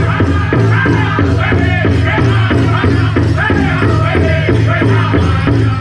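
Powwow drum group singing a chicken dance song in high voices over a steady unison beat on a big drum, with the jingle of dancers' leg bells mixed in.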